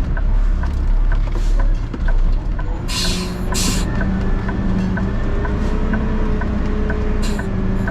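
Heavy truck engine running with a low rumble, its pitch rising slightly from about three seconds in. Short hissing bursts come about three seconds in, again just after, and near the end, and a faint steady ticking about twice a second runs under it.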